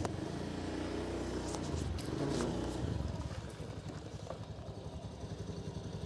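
A motorcycle engine running: a low, uneven rumble.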